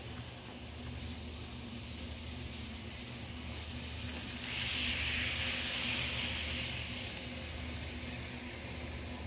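Kato N-scale D51 steam locomotive model passing close by on its track: the small motor and wheels on the rails make a hissing whir that swells about four and a half seconds in and fades a couple of seconds later, over a steady low hum.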